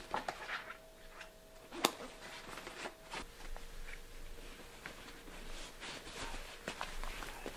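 Quiet rustling and shuffling of someone getting dressed: a foot pushed into a leather high-top sneaker, then steps on a hard floor. There is a sharp click about two seconds in, over a faint steady hum.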